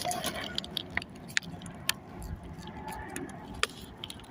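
A handful of sharp, light clicks and rattles spread unevenly over a few seconds, over a faint steady background.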